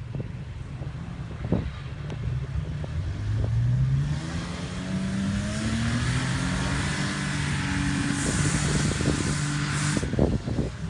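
Off-road 4x4 engine revving up hard, its pitch rising over a few seconds and then held high, as the vehicle drives up a sand dune, with a loud hiss of tyres throwing sand that stops suddenly near the end.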